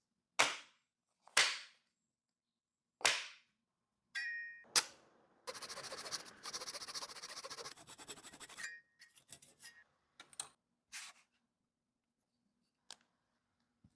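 A woodworking clamp being worked by hand: a few sharp clacks and a brief metallic ring, then about two seconds of rapid clicking, then a few more scattered clacks and clicks.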